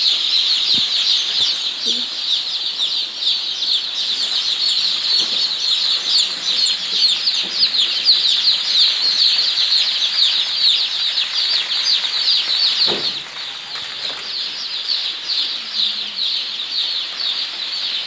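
A large flock of day-old chicks peeping all at once: a dense, steady, high-pitched chorus of short falling cheeps.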